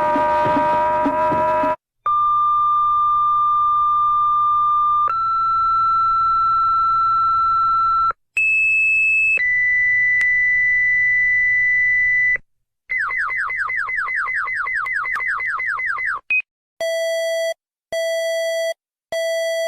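A sequence of electronic emergency-alert attention tones. A held chord-like tone cuts off. Steady beeping tones follow, stepping up in pitch several times. Then comes a fast warble of falling chirps, about seven a second, and near the end three slow on-off beeps.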